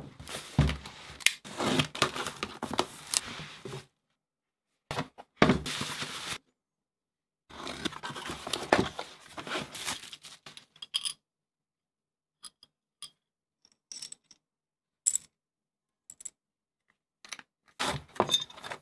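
Cardboard box and packaging being opened and unpacked by hand: bursts of tearing, scraping and rustling cardboard, then scattered light clicks and clinks of metal rig parts being lifted out of foam, with abrupt silent gaps between bursts.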